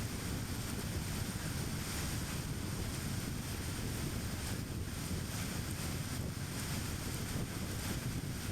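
Steady low rumble of a car driving on the road: tyre and engine noise, with a faint high hiss.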